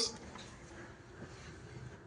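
Quiet, faint steady background noise with no distinct sound standing out.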